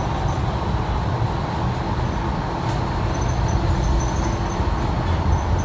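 Cabin noise of a New Flyer XDE60 Xcelsior diesel-electric hybrid articulated bus: a steady, loud low running noise with light rattles, and a faint steady hum joining about halfway through.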